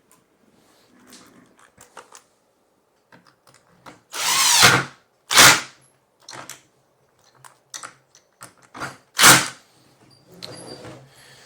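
Cordless drill driving screws to fasten casters to a plastic plant caddy, the motor running in three short bursts, the first about a second long, with light clicks and knocks of handling between them.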